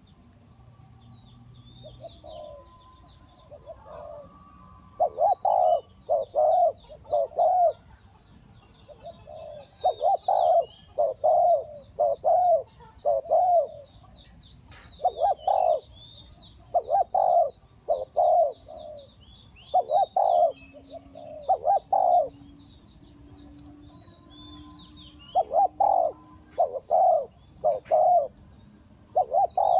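Spotted dove cooing in repeated phrases of two to four coos, with pauses between phrases. Small birds chirp faintly in the background.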